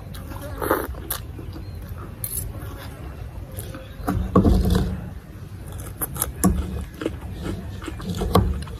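Someone eating instant noodles with a metal fork and spoon: slurping and chewing, with short clicks of the utensils, the loudest slurp about four seconds in. A steady low rumble runs underneath.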